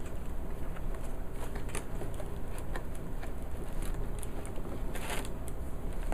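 Packaging rustling and crinkling as a keyboard is taken out of its box, with scattered small handling clicks and a louder rustle about five seconds in.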